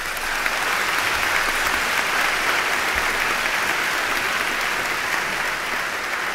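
Audience applauding: dense, steady clapping that comes up right as the speech ends and eases off slightly near the end.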